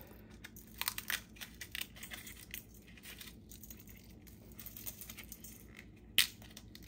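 Dried chili pods crackling and rustling as they are broken apart and tossed in by hand: a scatter of light crackles and ticks, with one sharp knock about six seconds in.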